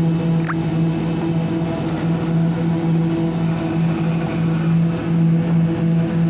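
Slipform concrete paver running steadily: a constant, even machinery hum.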